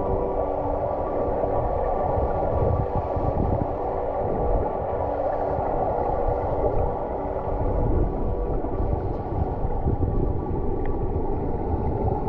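Muffled, steady rush of a river's current over a rocky bed, heard with the microphone underwater. A few faint steady tones are held over it.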